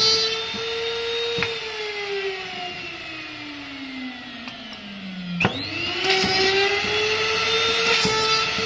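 High-speed motor of a benchtop cam-lock and dowel drilling machine running with a steady whine. From about a second and a half in, its pitch falls steadily for some four seconds; then, after a sharp click, it spins quickly back up to full speed.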